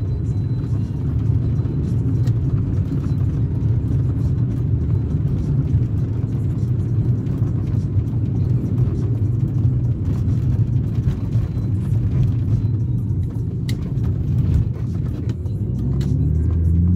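BMW E36 320i's M52B20 straight-six engine and exhaust heard from inside the cabin while driving, a steady rough low rumble. Near the end the engine note climbs as the car accelerates.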